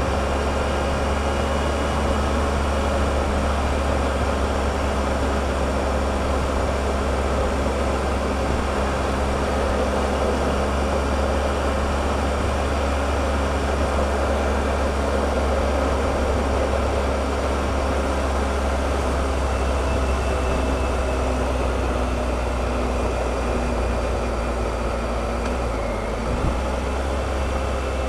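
Triumph Explorer motorcycle's three-cylinder engine running steadily under way, with wind and road noise, easing off briefly near the end.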